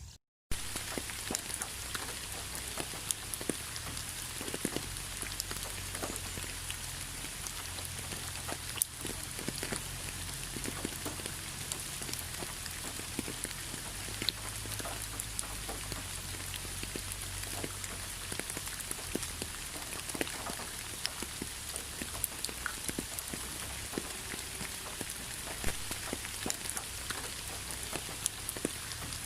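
Rain falling steadily: an even hiss with many individual drops ticking sharply on a surface. The sound cuts out for a moment just after the start.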